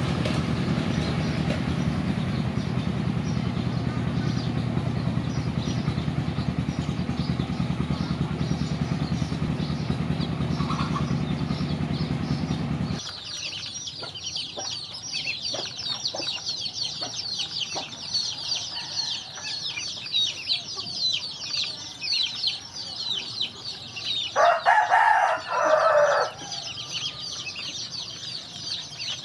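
For about the first 13 seconds a steady, loud low drone, which stops abruptly. Then a flock of Muscovy ducklings peeps rapidly and continuously in high-pitched calls. About 11 seconds later a louder, lower fowl call lasts nearly two seconds.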